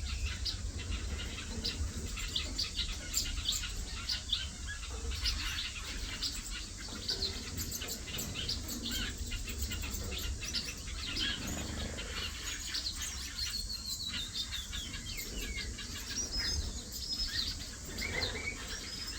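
A mixed flock of aviary finches, parson finches among them, chirping and calling over one another in many short, high notes, over a steady low rumble.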